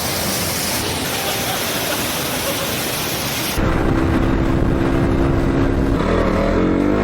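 Steady roar of rushing water from a waterfall. About three and a half seconds in it cuts abruptly to a motorcycle engine running at a steady pitch, which begins revving up with rising pitch near the end.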